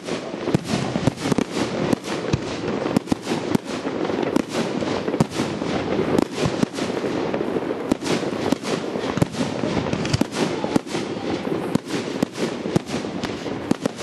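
Fireworks display: a dense, continuous barrage of bangs and crackling, several cracks a second over a steady rumble.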